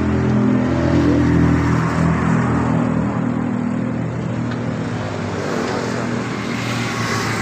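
A vehicle engine running with a steady hum, swelling a little louder in the first two seconds and then settling.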